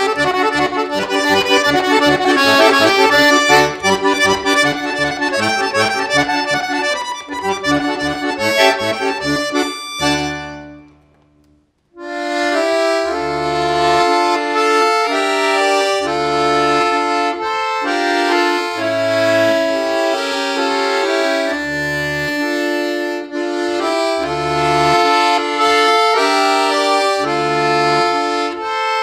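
Bayan (Russian button accordion) played solo: a fast, dense run of notes that dies away about ten seconds in. After a second's pause it starts again, slower, with a held-note melody over chords and bass notes that come every second or so.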